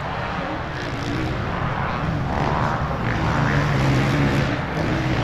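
Several motocross bikes' engines revving, rising and falling in pitch as they overlap.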